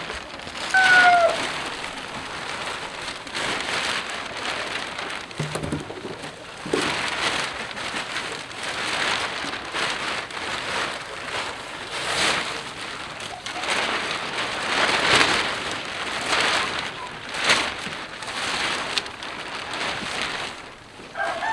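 Clear plastic sheeting rustling and crinkling in irregular swells as it is handled, with a brief high chirp about a second in.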